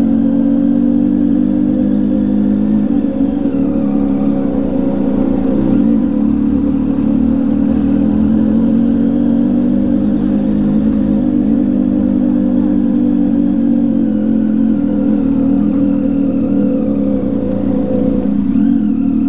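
Motorcycle engine and exhaust running at a steady cruising pitch under a low wind rumble. The note shifts slightly near the end.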